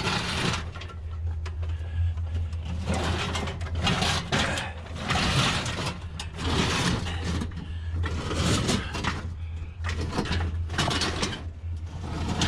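Heavy curbside scrap being handled and shifted, with repeated scraping and rustling swells every second or two over a steady low hum.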